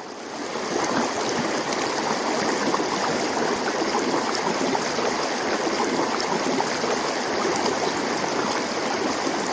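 Stream water flowing over rocks: a steady rush with small splashes and trickles.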